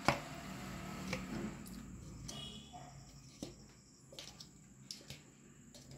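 A few soft, scattered taps and knocks as small date-and-nut balls are set one at a time into a plastic jar.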